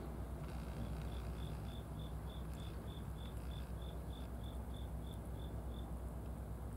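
An insect chirping in an even series of short, high notes, about three a second, starting about a second in and stopping near the end, over a steady low rumble.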